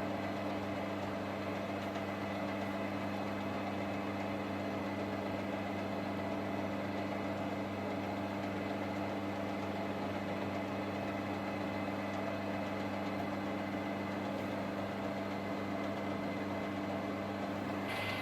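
Metal lathe running steadily, its motor giving an even, unchanging hum.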